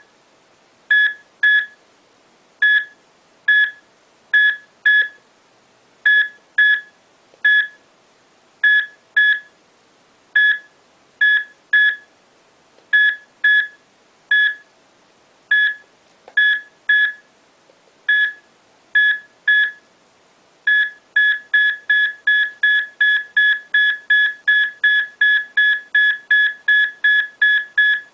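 Handheld electromagnetic field meter beeping as it picks up a mobile phone's emissions: short, high beeps, single and in pairs at uneven gaps, then about twenty seconds in they quicken to a fast, even beeping of about three or four a second.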